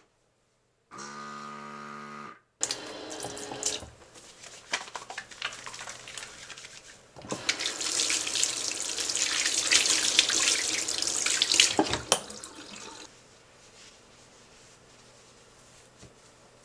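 Automatic soap dispenser's motor humming steadily for about a second and a half, then a bathroom faucet's water running onto hands being washed. The water is loudest in the middle and stops about thirteen seconds in.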